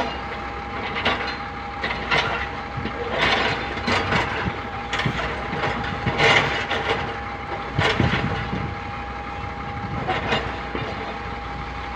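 Heavy-equipment diesel engines running steadily with a constant whine, while an excavator at work gives irregular clanks and knocks, about eight in all.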